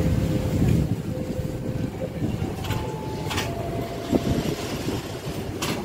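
Gajayana passenger train carriages rolling slowly past at close range: a steady low rumble with a few sharp clicks of wheels over the rails and brief faint squeals.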